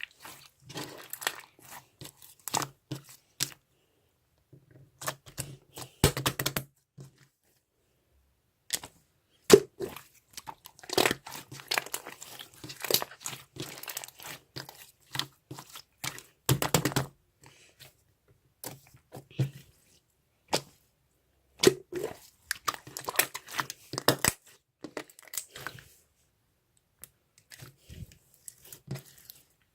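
Close-up crinkling and crunching noises in irregular clusters of sharp crackles, with short silent gaps between them.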